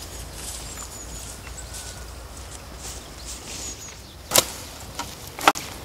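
Two short sharp whooshes about a second apart near the end, typical of spinning rods swishing through a cast, over quiet open-air background with a few faint high bird chirps.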